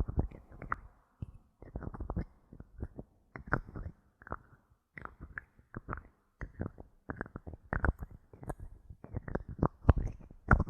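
Bottle caps handled close to the microphone: irregular clusters of short clicks and knocks, with brief pauses between them.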